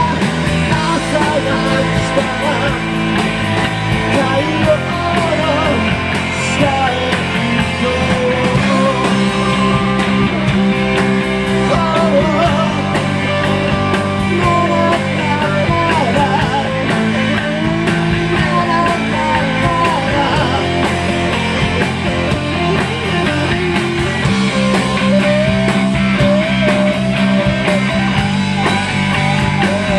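A live rock band playing loudly, with guitar and a man singing into a microphone over sustained low notes and a wavering melody line.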